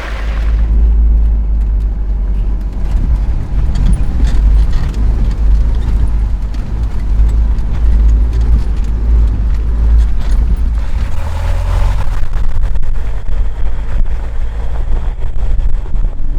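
Off-road 4x4 vehicle driving over a rough track: a loud, steady low rumble with scattered knocks and rattles.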